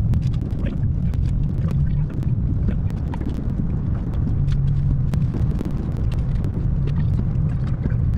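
Steady road and engine rumble inside a vehicle cabin at highway speed, with many scattered sharp ticks of rain hitting the windshield.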